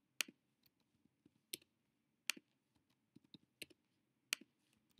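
Computer keyboard keys and mouse buttons clicking while numbers are entered: about five sharp clicks at uneven gaps of roughly a second, with fainter key taps between them.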